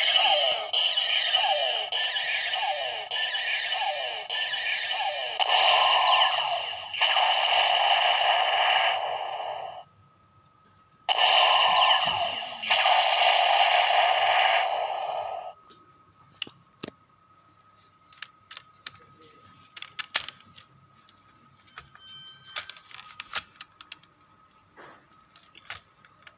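Electronic sound effects from a Kamen Rider Skull toy gun (Skull Magnum). First comes a run of repeated falling zaps, then two long, loud electronic blasts of a few seconds each. After that come scattered sharp plastic clicks from the toy's trigger and parts.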